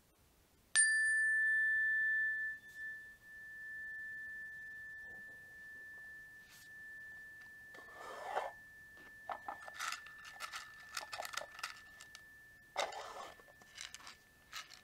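A handheld metal chime bar struck once with a mallet, ringing a single high tone that fades slowly and is still faintly ringing many seconds later. From about eight seconds in, rustling and handling noises come and go over it.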